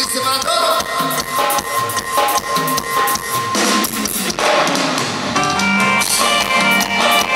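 Live band music over a PA: a drum kit plays a run of hits, then about five seconds in the band comes in with held keyboard chords and bass.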